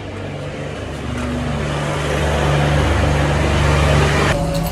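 Vehicle engine running, growing louder over about three seconds, then dropping back suddenly near the end.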